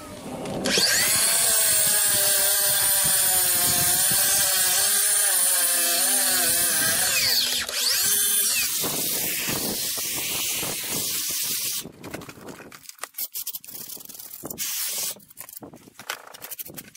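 Hand-held angle grinder with a diamond blade cutting masonry: a long high whine from about a second in whose pitch wavers as the blade bites, a second shorter cut, then short scraping sounds and a brief last run near the end.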